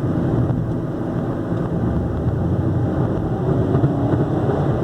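Ford Focus 2.0 Duratec engine running with a steady rattling vibration, like a tin can banging. The cause is a broken engine mount letting metal rub on metal, and the noise grows with engine speed.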